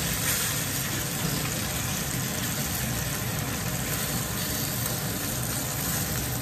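Fish frying in hot oil in a pan: a steady, even sizzle.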